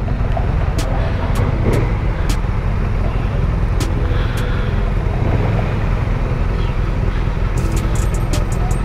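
Motorcycle engines idling at a standstill, a steady low rumble, with city traffic around.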